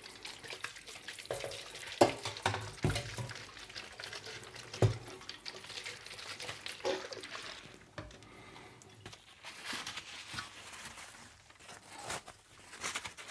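A wet circuit board being shaken over a stainless steel sink: water spattering and dripping onto the steel, with a few sharp knocks. Near the end comes a soft rustle as the board is set down on paper towel.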